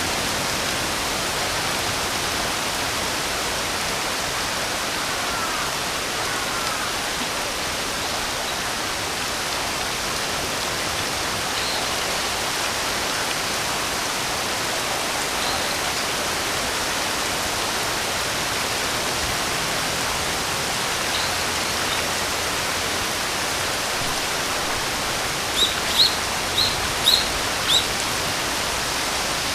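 Steady hiss of rain, with a few short bird chirps scattered through it and a quick series of five louder chirps near the end.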